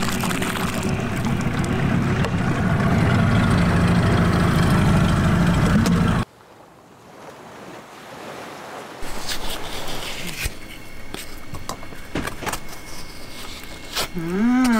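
Small outboard motor running as an inflatable dinghy moves over the water, with wind and water noise, cutting off abruptly about six seconds in. After that, quieter clicks and scrapes of a metal spoon scooping coconut flesh into a bowl.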